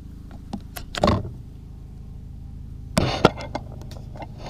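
Handling noise of an exam paper and a hand-held camera being moved: a short rustle and knock about a second in and a cluster of clicks and rustles around three seconds in, over a steady low hum.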